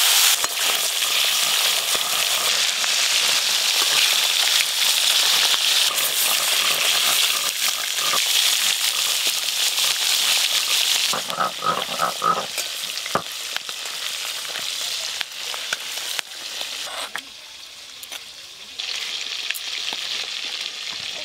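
Pieces of snakehead (shol) fish sizzling in hot oil in a metal wok, turned with a metal spatula. The sizzle is loud at first, softens about halfway through, and drops low for a couple of seconds near the end before picking up again.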